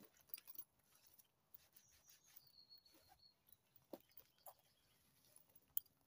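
Very faint handling of a quilted handbag and its strap: soft rustles and light clicks of the metal strap hardware, the sharpest click near the end. A thin, high bird whistle is heard faintly for about a second in the middle.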